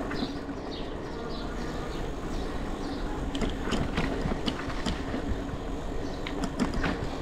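Electric bike under way with the Bafang motor assisting: a steady motor hum over wind and road rumble, with scattered light clicks and rattles from the bike.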